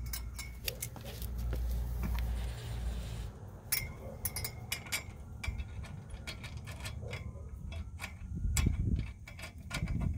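Irregular light metal clicks and clinks of lug nuts being threaded by hand and snugged on a wire wheel's adapter, with a low rumbling noise at times.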